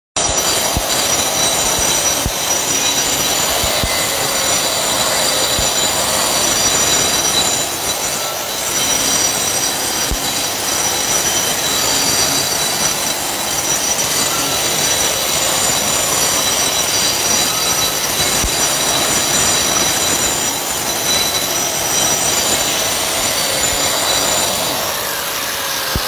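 Concrete grinder running on a concrete surface: a loud, steady grinding noise with a high-pitched squeal held over it. Near the end a lower tone starts to sink in pitch.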